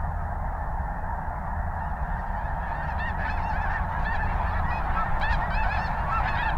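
A large flock of snow geese honking together, a dense, unbroken din of overlapping calls. From about three seconds in, single nearer calls stand out more clearly and the din grows a little louder.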